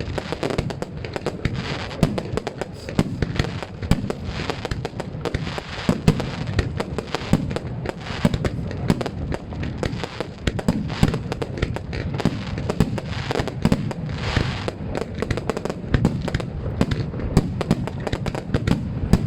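Grand finale of a fireworks display: a dense, unbroken barrage of shell bursts, bangs and crackling, many shots a second with no pauses.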